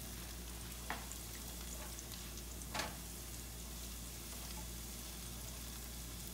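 Chopped scallion whites sizzling in hot oil in a nonstick skillet as they brown, stirred with a utensil, with two short knocks about one and three seconds in.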